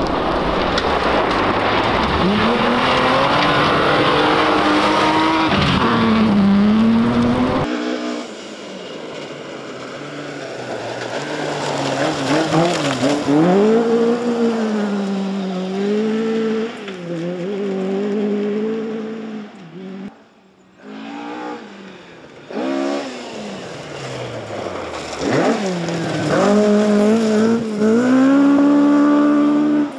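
Historic rally cars, Mk1 and Mk2 Ford Escorts among them, driven hard one after another on a loose gravel stage. The engines rev up and down through the gears as each car slides past, with gravel spraying from the tyres.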